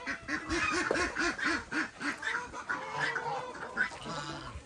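A flock of ducks quacking, with a quick run of short, evenly spaced quacks in the first couple of seconds and other waterfowl calls overlapping throughout.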